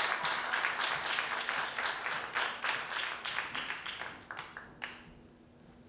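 Audience applauding, the clapping thinning out and dying away after about four seconds, with a few last scattered claps.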